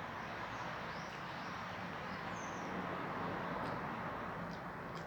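Steady background noise with a low hum, and a few faint high chirps, like small birds.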